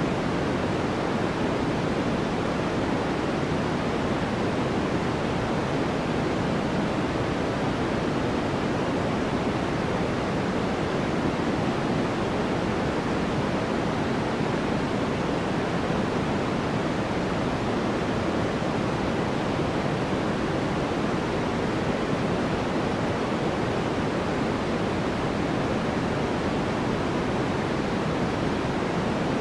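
Steady electronic white noise: an even, unchanging hiss, fuller in the low and middle range than in the highs.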